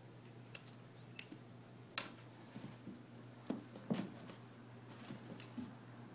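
Scattered knocks, taps and soft thumps of a cat pouncing and scrambling about on carpet and a scratching post while playing with a feather toy, the sharpest click about two seconds in and a burst of thumps a second or two later. A steady low hum runs underneath.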